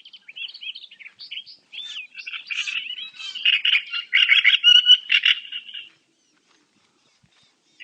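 Many small birds chirping in quick, overlapping calls, which stop suddenly about six seconds in.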